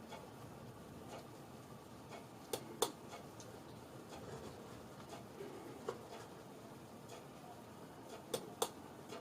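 A few sharp clicks over a faint steady hum: two close together about two and a half seconds in, a single one near the middle, and another close pair near the end.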